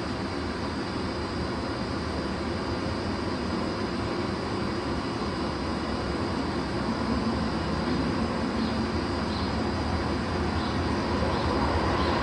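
Steady rumbling noise with no distinct breaths, a little louder in the second half.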